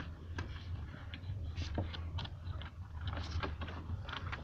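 Scratchy rustling and scattered small clicks of hands working loose wires in under a car door's rubber weatherstrip and plastic trim.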